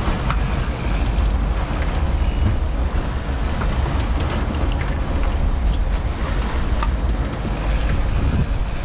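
Steady wind noise on the microphone over the low drone of a sportfishing boat's engines and water churning at the stern.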